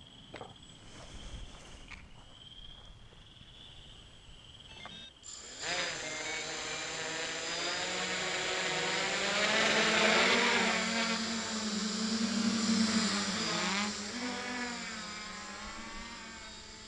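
Hexacopter's electric motors and propellers start about five seconds in: a buzzing whine whose pitch wavers with the throttle. It grows loudest toward the middle as the craft lifts off, then fades as it flies away. Before that there are only a few faint clicks.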